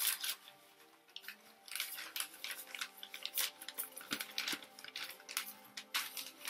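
Paper and plastic wrapping crinkling and rustling in irregular bursts as a packaged plant cutting is unwrapped by hand.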